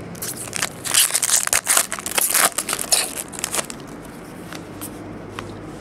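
A foil trading-card pack wrapper torn open and crinkled by hand: a dense run of sharp crackles for about three and a half seconds, then it stops.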